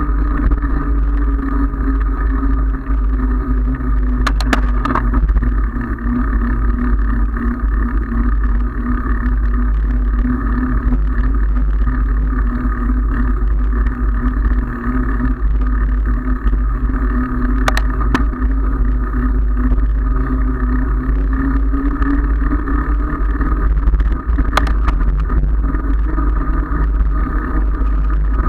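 Wind buffeting the microphone and tyre noise on asphalt from a handlebar-mounted camera on a moving bicycle: a steady, loud rumble with a wavering hum, broken by a few sharp clicks.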